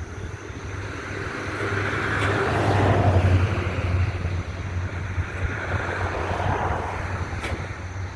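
EMD MP15 diesel switcher locomotives, heard as a steady low engine hum with a swell of mechanical noise that builds to a peak about three seconds in and then eases off. This comes during the hard start of the second unit, which is struggling to turn over on weak batteries.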